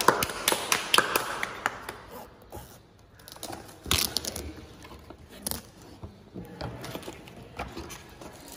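Books and packaging being handled and unpacked: crackling and sharp clicks, densest in the first second or so, with a louder knock about four seconds in and scattered smaller clicks after.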